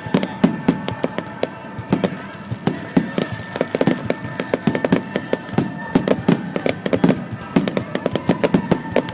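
Aerial fireworks going off in rapid succession: a dense run of sharp cracks and bangs, several a second, over a steady tone.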